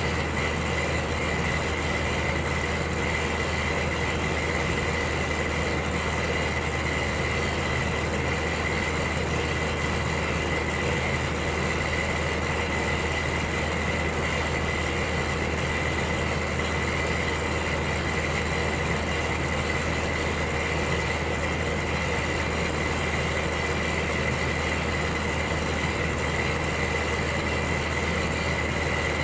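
Electric heater running steadily: a low hum under an even rushing noise, with a faint steady high tone.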